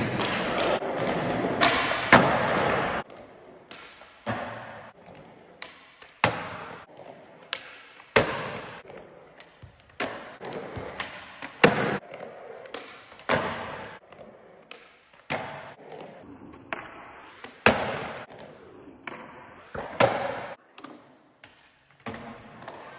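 Skateboard on concrete: wheels rolling loudly for the first three seconds, then a string of sharp tail pops and landing slaps every second or two, each ringing briefly.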